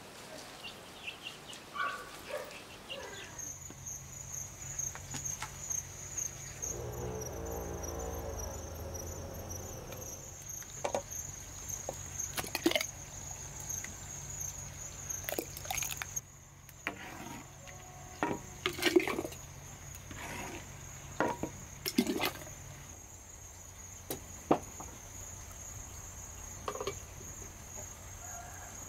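A steady high-pitched insect trill starts about three seconds in and carries on, over a faint low hum, with scattered short clicks and knocks.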